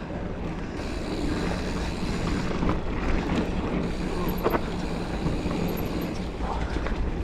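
Giant Fathom mountain bike rolling along a dirt trail: steady tyre and ride noise with a low rumble and a couple of faint knocks from the bike over the ground.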